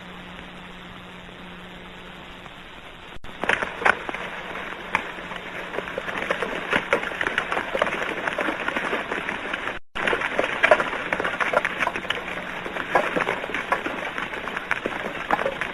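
Old film soundtrack hiss and a low hum for about three seconds, then dense, irregular clattering footfalls of a troop column on the move. There is a brief dropout near ten seconds.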